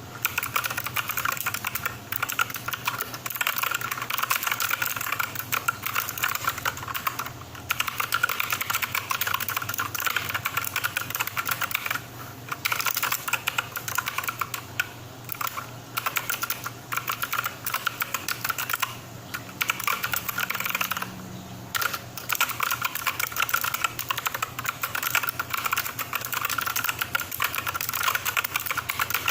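Fast, continuous typing on a mechanical keyboard with clicky blue switches, a dense stream of sharp, loud clicks broken by a few short pauses.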